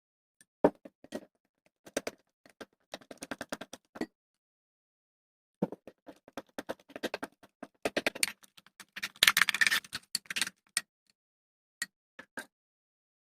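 Homemade detergent-and-salt slime being squished and pulled by hand: irregular runs of sticky clicks and pops, densest and loudest about nine to ten seconds in.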